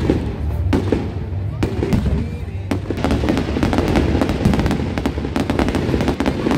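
Aerial fireworks exploding overhead: a string of sharp bangs over a steady low rumble, coming thicker and faster from about three seconds in.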